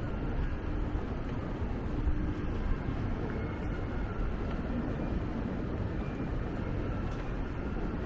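Busy city street background: a steady low rumble of traffic.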